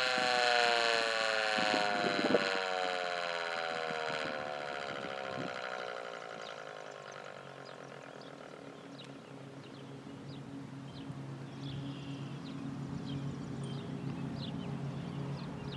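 Sterling 2V8 outdoor warning siren winding down at the end of its alert signal, its pitch sliding steadily lower as it fades out over about seven seconds. After it dies away, birds chirp faintly over a low steady hum.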